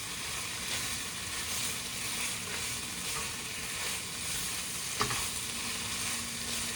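Food sizzling in a frying pan while it is stirred and mixed, with repeated stirring strokes over the steady hiss. There is a single sharp knock about five seconds in.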